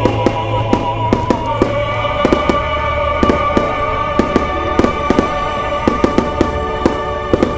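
Fireworks going off in quick, irregular succession, several sharp bangs and crackles a second, over music with long held notes.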